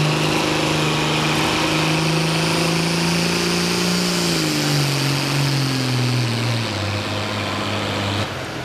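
Pro stock pulling tractor's engine running flat out under load, its pitch holding steady and then falling in steps from about four seconds in as the engine is pulled down. The sound cuts off abruptly near the end.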